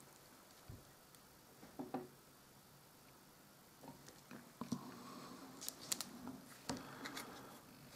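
Faint handling noises: scattered small clicks, taps and brief scratchy sounds from fingers and a fine paintbrush working on a miniature figure held on a plastic bottle cap, thickest in the second half, with the sharpest ticks about six seconds in.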